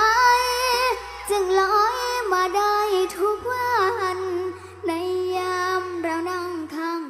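A young girl singing into a microphone, with long held notes that waver in pitch, over a steady low backing note that shifts down in pitch about halfway through and drops out near the end.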